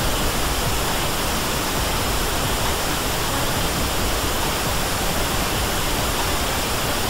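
FM radio receiver hiss: steady static with no station audible through it.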